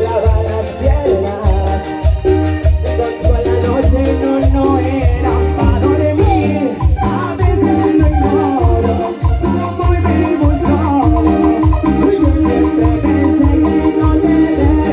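Live band playing an instrumental passage of Latin dance music: a steady thumping bass beat with shaken percussion under a melodic keyboard lead.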